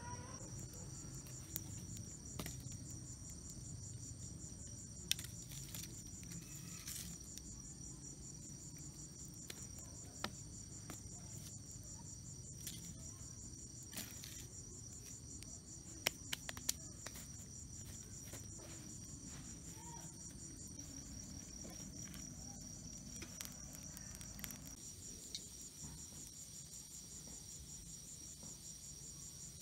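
Crickets trilling steadily in a high, fast-pulsing chorus, with scattered sharp clicks and snaps, the loudest about 5 seconds in and around 16 to 17 seconds in.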